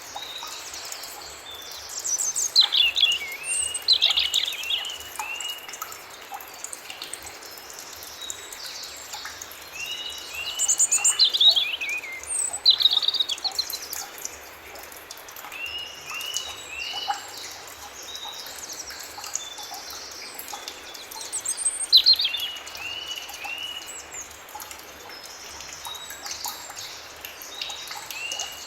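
Several forest birds singing. One repeats a short series of four or five arched whistled notes every several seconds, while another gives loud, rapid falling phrases a few times, over a steady high background of more distant birdsong.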